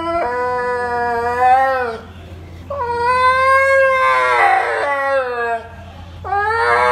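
Husky howling in three long, wavering cries with short pauses between them.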